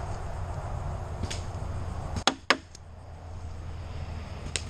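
Two sharp paintball pops close to the microphone, about a quarter of a second apart, a little over two seconds in, with single fainter pops of paintball fire before and near the end.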